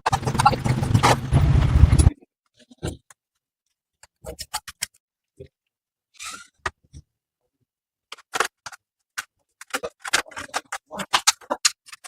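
A machine running with a steady low hum that cuts off suddenly about two seconds in, followed by scattered clicks and knocks of work on mechanical parts, coming quicker near the end.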